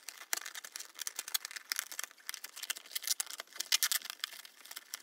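Perforated cardboard outline being punched out of a toy box: a dense run of crackling, snapping and small tearing clicks from the card.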